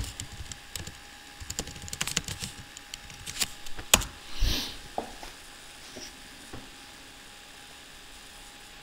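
Typing on a computer keyboard: a run of key clicks over the first six or so seconds, with one louder key press about four seconds in, then only a faint steady hiss.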